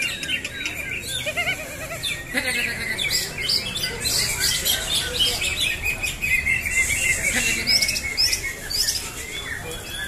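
Several caged green leafbirds (cucak ijo) singing at once, a dense tangle of rapid high chirps, trills and whistled phrases overlapping with one another.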